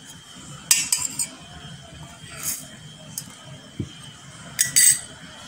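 Metal spoon clinking and scraping against a cut-glass bowl and a steel tin as nigella seeds are scooped out and tipped in: a few short clusters of clinks, the loudest near the end.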